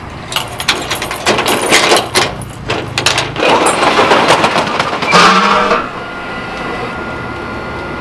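Metallic clicking and clattering of a padlock being unlocked at the base of a metal roller shutter, the shutter's slats rattling. About three seconds in, the sharp clicks give way to a longer, rushing rattle.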